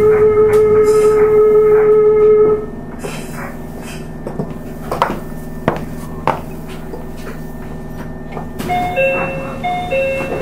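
Inside a Meitetsu 1000/1200-series electric train car, a steady electrical whine from the motor car's running gear cuts off about two and a half seconds in. A low steady hum remains, with a few scattered clicks and knocks. Near the end a two-note chime starts repeating.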